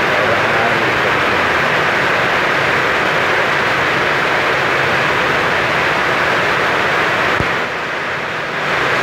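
Heavy rain pouring down, a steady dense hiss. It dips briefly near the end.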